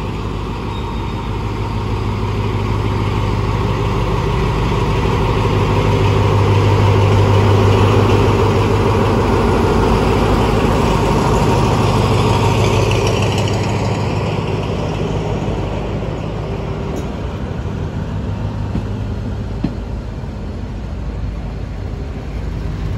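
Two SRT Alsthom diesel-electric locomotives pulling express parcel train 985 away from the platform. The engine drone swells to its loudest about seven seconds in as the locomotives pass, then fades as the parcel vans roll by.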